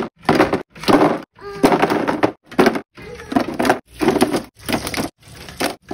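Metal slotted skimmer scraping and knocking against boiled eggs and the basin as eggs are scooped from water: a run of short knocks and scrapes, each cut off by a dead gap.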